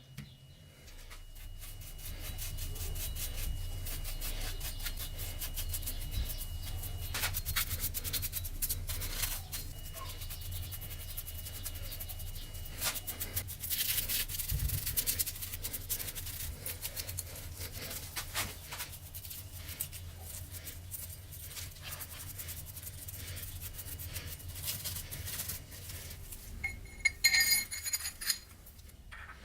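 Rapid rubbing and scraping, a dense run of small scratches over a low steady hum, with a few short ringing clinks near the end.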